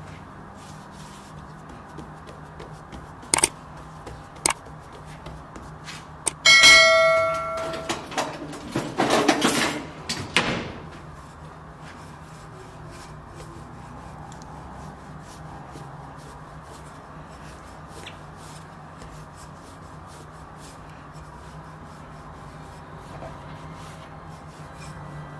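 A single sharp metallic ding, ringing with several tones and fading over about a second, followed by about two seconds of loud rustling. A couple of light clicks come before it.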